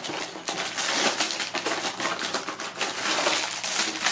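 Sealed plastic bags of Lego pieces sliding out of a cardboard box onto a wooden table and being handled, the bags crinkling and the loose bricks inside rattling and clicking.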